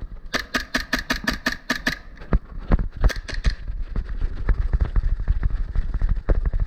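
Airsoft rifle firing a quick string of about nine shots, then a shorter burst of about four a second later, over the steady thudding of running footsteps.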